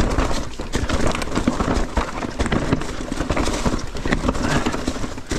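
Mountain bike riding fast through a rock garden, its tyres and frame knocking over the rocks in a rapid, irregular clatter over a steady low rumble.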